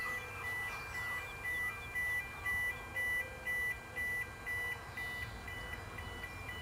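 Electronic warning alarm beeping steadily at about two beeps a second, switching back and forth between two close high pitches.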